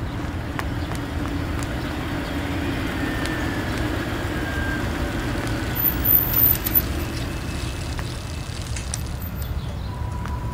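A steady low rumble of a motor vehicle and street traffic, with an engine hum over the first half. A few sharp taps or knocks come about six to seven seconds in.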